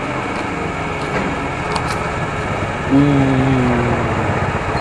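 Steady hum of vehicle engines running at a petrol pump. About three seconds in, one engine note comes up louder and slides down in pitch for about a second and a half before fading.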